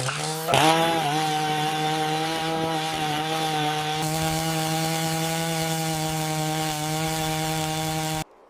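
Chainsaw revving up about half a second in, then running steadily at high speed until it cuts off suddenly near the end.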